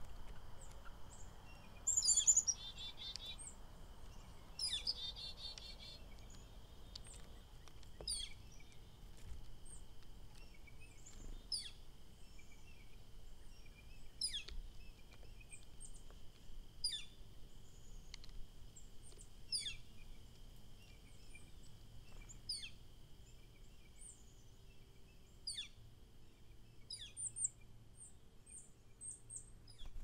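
Wild songbirds calling. One bird repeats a sharp, quickly falling note about every three seconds, after a couple of quick chirpy trills near the start, all over a steady high-pitched drone.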